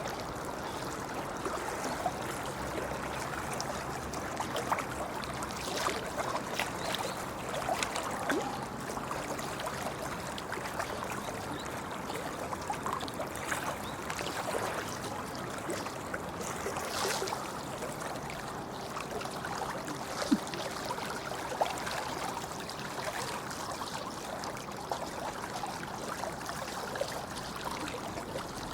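Shallow river babbling over stones: a steady rush of running water with many small irregular splashes and trickles.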